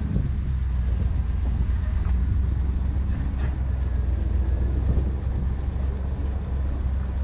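Jeep Grand Cherokee driving slowly along a dirt trail: a steady low engine and tyre rumble, with a few faint knocks.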